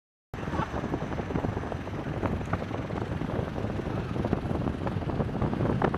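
Jet engine noise from an F-15E Strike Eagle's twin turbofans on landing approach, a dense low rumble that cuts in abruptly just after the start and slowly grows louder, with wind buffeting the microphone.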